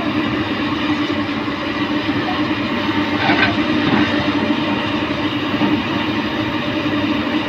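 Komatsu PC200 excavator's diesel engine running steadily at working revs, with a brief scraping clatter about three seconds in.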